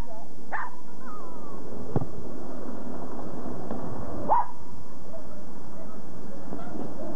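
Small dog giving a few short barks, several seconds apart, over a steady background hiss.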